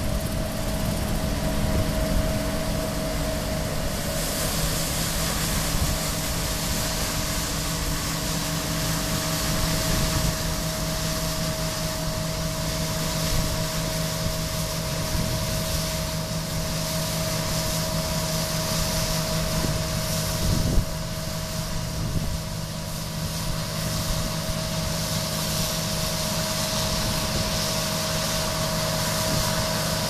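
A 2013 John Deere combine harvesting wheat with a MacDon FlexDraper header: a steady machine drone with a constant whine and a hiss over the top, and one short knock about two-thirds of the way through.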